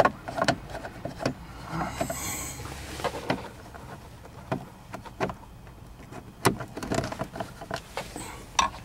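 Scattered clicks and light knocks of a hand screwdriver working a screw loose from the plastic instrument-cluster bezel of a Dodge Caravan dashboard, with hands and sleeve rubbing against the trim.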